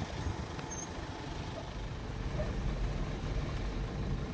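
Steady low rumble of a car driving, engine and road noise.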